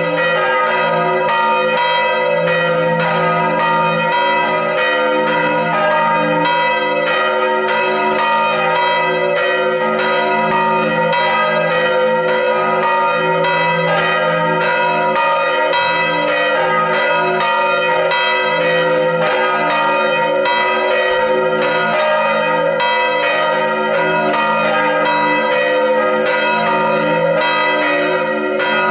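Three bronze church bells swung in full peal (volée), tuned D♯, A♯ and B, their clappers striking over and over in a steady, unbroken overlapping clang. This is the peal rung to call the parish to the Sunday service.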